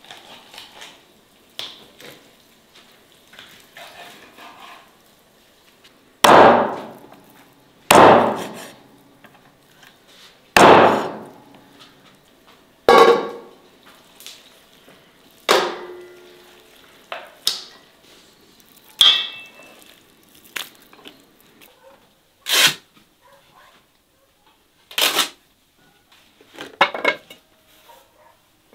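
A series of about ten separate sharp knocks and clanks, each with a brief ringing decay. The three loudest come close together about a quarter to a third of the way in, and the later ones are lighter.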